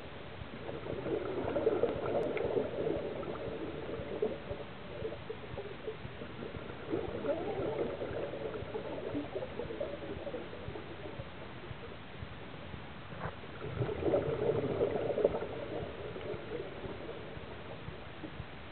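Scuba diver's exhaled breath bubbling out of the regulator underwater, in three bubbling bursts about six seconds apart over a steady watery hiss.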